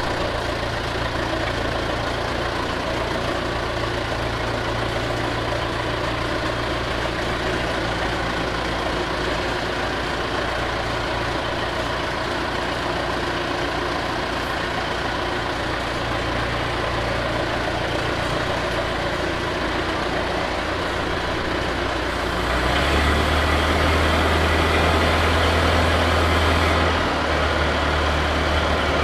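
Allis-Chalmers forklift's engine running steadily. About three-quarters of the way through it grows louder, with an added hiss, for about four seconds, then eases back a little.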